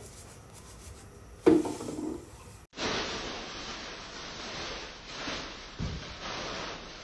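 Silicone spatula stirring thick white sauce in a pan, a steady rubbing, scraping sound with soft repeated strokes. One sharp knock about one and a half seconds in.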